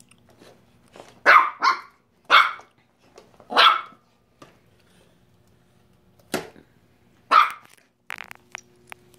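Teacup Yorkshire terrier puppy barking at a vacuum cleaner head. About six sharp, high barks come singly and in pairs with short pauses between them.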